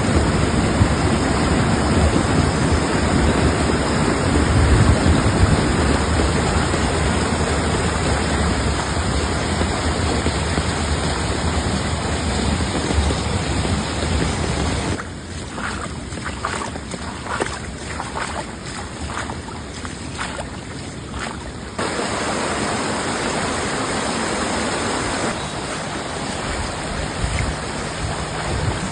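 A rain-swollen stream in flood rushing past as a steady, loud wash of water. The sound is quieter and thinner for several seconds in the middle, then comes back at full strength.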